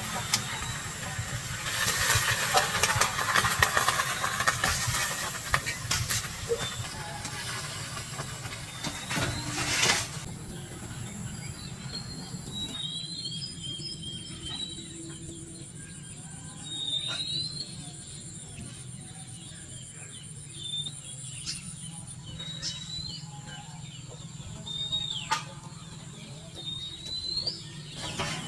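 A loud, rough hissing noise for about the first ten seconds, which cuts off suddenly. Then come short rising bird chirps, repeating every second or two over a faint steady high whine.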